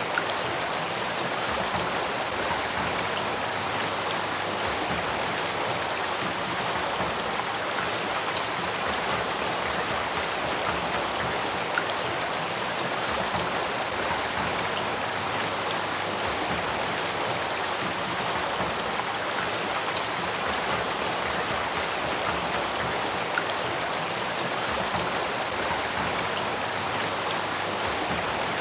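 The Sacramento River's headwaters stream flowing in a steady rush of water.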